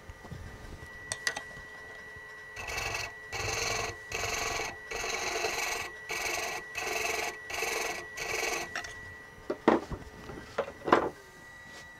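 Small hand tool scraped back and forth across the rim of a maple workpiece in a lathe chuck, about nine short strokes, cleaning up the start of a freshly chased thread. Two sharp knocks follow near the end.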